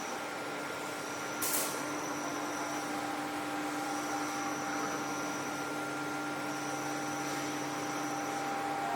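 Steady hum of meat-processing plant machinery, with a high whine that switches on and off about every two and a half seconds and a short hiss of air about one and a half seconds in.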